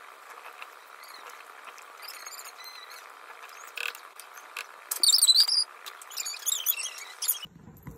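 Steady hiss of a pot of rice porridge cooking on the stove, overlaid by a run of high, wavering squeaky chirps that are loudest about five seconds in. The hiss cuts off sharply just before the end.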